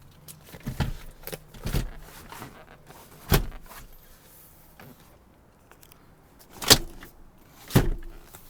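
A handful of sharp clunks and knocks, spaced irregularly, from parts of an SUV's interior being handled, over a faint low hum.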